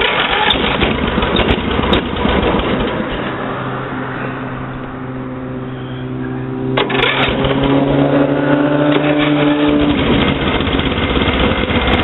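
Snapper LT11 riding tractor's Briggs & Stratton engine running cold just after starting. It runs rough at first, settles to a steadier note, and gets louder again about seven seconds in.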